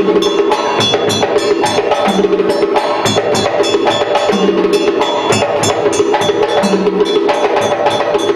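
West African drum ensemble playing a fast, steady rhythm: dense hand-drum strikes with a dry, clicking wood-block-like pattern on top, and a low drum note sounding about every two seconds.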